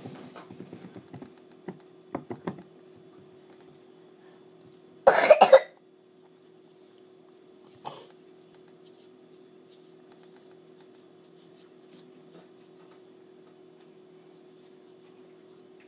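A child coughs once, loudly and briefly, about five seconds in, then gives a second, fainter cough near eight seconds.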